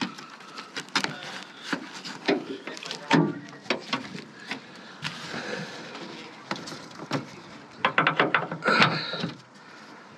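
Clicks and knocks of a Vauxhall Corsa's bonnet being released, lifted and set on its prop rod, with a quick run of sharp clicks about eight to nine seconds in.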